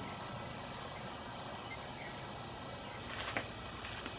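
Ultrasonic parts cleaner running with a cleaning cycle under way: a steady hiss with a thin high whine. A couple of faint ticks come near the end.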